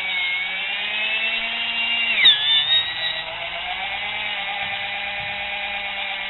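Brushed universal motor from a kitchen mixer running on low-voltage rectified DC, with a steady high whine. About two seconds in its pitch drops sharply with a brief louder rattle, as the motor slows for a moment, then it climbs back up to speed and runs steadily.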